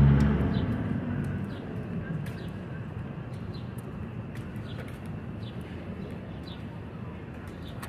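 A passing motor vehicle's engine fades away over the first second or two, leaving steady street background noise. Faint short bird chirps and scattered light clicks sound over it.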